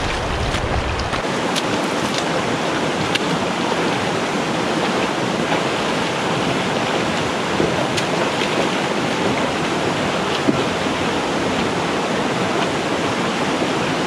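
Shallow, fast-running rocky stream rushing steadily close by, with a few brief splashes as a hiker wades across. A low wind rumble on the microphone fades in the first second.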